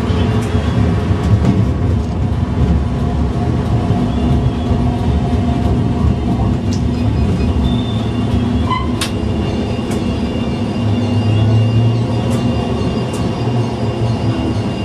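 Low-floor city tram running on street track, heard from the driver's cab: a steady low motor and wheel hum with scattered clicks from rail joints and points. A thin high whine comes in about nine seconds in.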